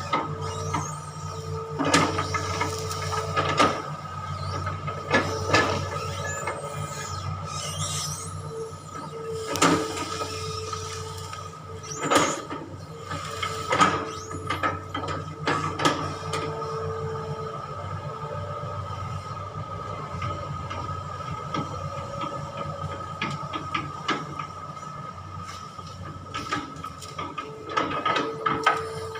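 Long-reach excavator running steadily with a low engine hum, a squeal that comes and goes, and repeated sharp knocks and cracks, most frequent in the first half.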